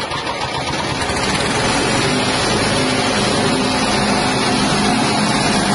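Rice-husk grinding mill running at speed, driven by its 6.5 hp petrol engine: a loud, steady mechanical din of engine and spinning rotor that builds over about the first second.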